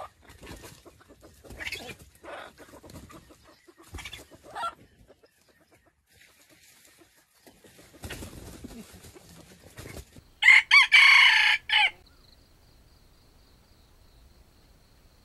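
Red junglefowl rooster crowing once, loud and short, broken into a few segments, about ten seconds in. Before it come a few soft, scattered clucks from the foraging birds.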